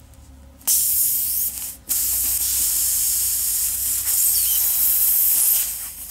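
Air hissing out through the puncture hole of an inflated pneumatic garden-cart tyre while the hole is opened for a vulcanising plug repair. The hiss starts about a second in, breaks off briefly, then runs on steadily.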